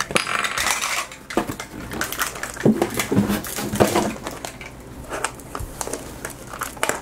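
Hard plastic clicking and rattling: a Zuru 5 Surprise Mini Brands capsule being handled and the tiny plastic miniatures knocking together and set down on a table, in a quick run of small clicks.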